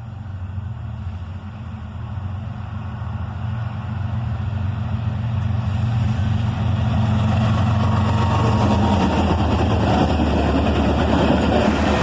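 Diesel locomotives of a six-unit CSX freight train, led by a GE ES40DC, approaching with a steady low engine drone that grows steadily louder. A broader rumble of the passing train fills in over the second half.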